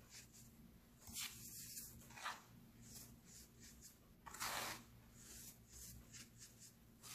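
Hands scooping and squeezing fine baking soda powder in a plastic tray: soft, gritty crunching and sifting rustles in irregular bursts. The loudest come about a second in and again around four and a half seconds, over a faint steady low hum.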